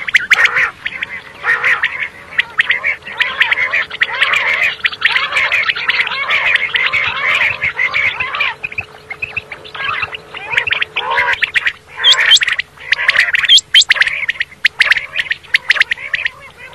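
Common quail calling in a dense, rapid run of overlapping short notes and clicks, with a faint steady hum underneath for the first two thirds or so.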